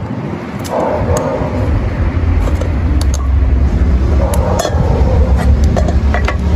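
Steady low rumble of road traffic, with a cleaver tapping and scraping on a wooden cutting board and a few light clinks against a steel bowl.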